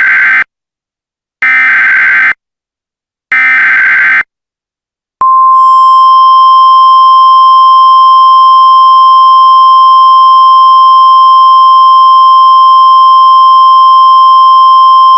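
Emergency Alert System header tones: three short buzzy data bursts, about a second each and about two seconds apart, then a single steady attention tone held for about ten seconds.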